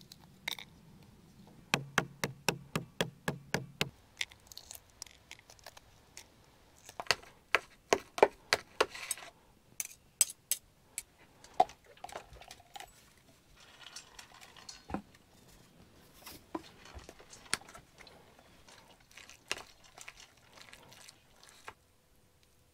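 Egg salad preparation: sharp taps and clicks of a utensil against a dish as hard-boiled eggs are peeled and made into egg salad. There is a quick run of about six taps a second about two seconds in, further clusters of clicks a few seconds later, and scattered knocks toward the end.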